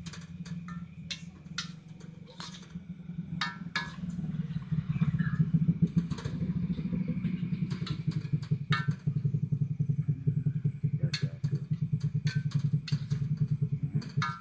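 A metal spatula clanking and scraping against a wok as noodles are stirred, in irregular knocks. Underneath, a small engine runs with a steady pulsing hum that grows louder about four seconds in.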